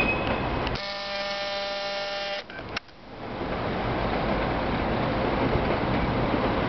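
Wind rushing on the microphone, cut off about a second in by a steady electric buzzing whine from the camera's zoom motor that lasts about a second and a half and ends with a click. The wind noise swells back soon after.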